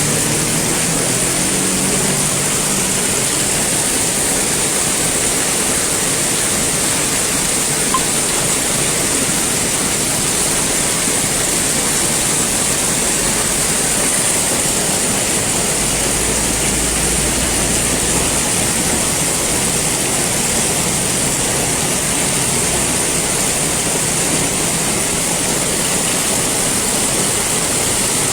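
Heavy rain pouring down steadily in a thunderstorm, a loud even hiss. An engine fades away in the first couple of seconds.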